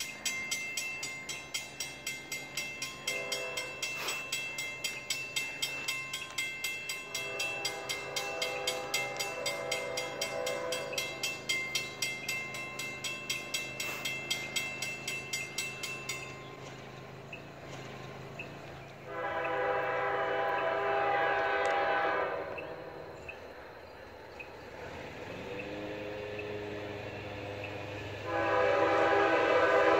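Grade-crossing warning bell ringing about twice a second, stopping about halfway through. An approaching CSX GE ES44AH freight locomotive sounds its air horn in several blasts that grow louder as it nears, the loudest starting near the end.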